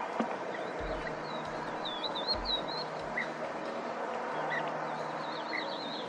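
Small birds chirping and twittering in short warbling phrases, over a steady outdoor background with a few low rumbles. A single sharp click comes at the very start.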